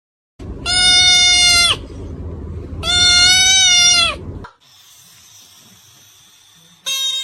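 Two loud, long animal calls, each held at a steady pitch for just over a second, about two seconds apart, followed by a faint hiss.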